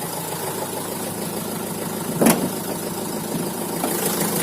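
Opel Vivaro's 1.9 diesel engine idling steadily and quietly, its alternator running on new bearings with no crackling from a worn bearing. One short knock about two seconds in.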